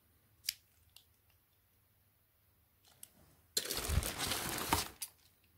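A hand rummaging in a plastic bag of die-cast toy cars: a crackling rustle of plastic lasting about a second and a half, starting past the middle, with a couple of faint clicks about a second before it.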